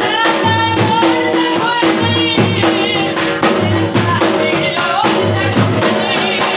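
Dhol drum beaten with sticks in a fast, driving rhythm for jhumar dancing, with a voice singing a wavering melody over a held low note.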